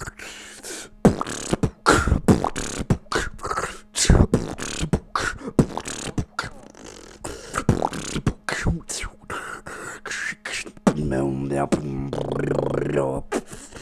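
Human beatboxing: a fast, rhythmic run of kick, snare and hi-hat sounds made with the mouth. About eleven seconds in, a sustained hummed bass tone joins the percussion.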